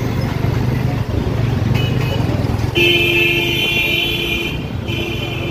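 Street traffic: motorbike and car engines running close by, with a vehicle horn honking, faintly at first, then one long blast of about two seconds past the middle and a shorter one near the end.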